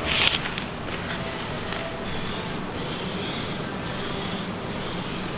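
A squeegee is rubbed in strokes over vinyl decal film on a table, and then comes a softer, steadier scraping as a utility knife trims excess laminate from the sheet.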